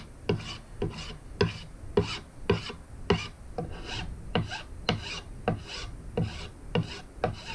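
Single-cut side of a hand file pushed in short strokes, about two a second, along freshly applied natural wood edge banding. It is filing the banding's overhanging lip and squeezed-out glue flush with the panel.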